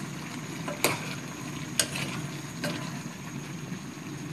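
Sausages and shrimp sizzling in a pan: a steady frying hiss, with three sharp clicks about a second apart.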